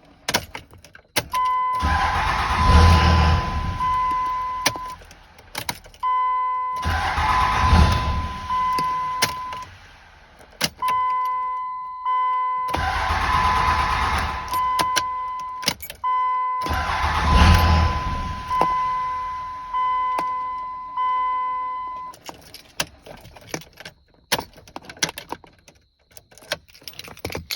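2003 5.9 Cummins diesel cranking on its starter in four bursts of about three seconds each without catching: a no-start that persists with the fuel pressure control (FPC) disconnected. A steady warning chime beeps on and off between the cranks, and there are scattered clicks near the end.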